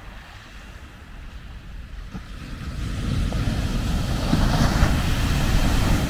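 Ocean surf: a wave swells and crashes onto the sand beach, the rushing noise building from about two seconds in and loudest near the end as the wave breaks into foam.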